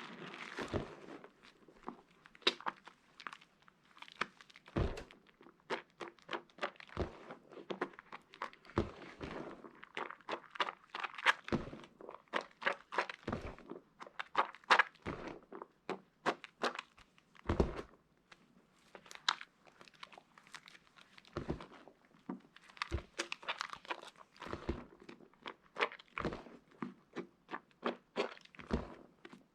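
Soap pieces being worked and crushed by hand, giving irregular crunching and crackling with a few dull thunks.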